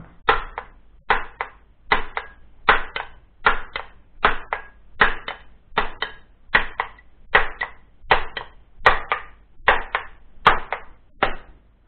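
Steady hammer blows on the welded steel core of a microwave oven transformer, beating at the welds to break it open. About fifteen blows, a little more than one a second, each with a lighter rebound tap just after it; they stop shortly before the end.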